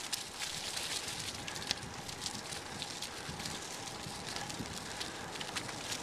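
Bicycle tyres rolling over a gravel trail covered in dry fallen leaves, a steady crackle of leaves and small stones popping under the tyres over a low rumble.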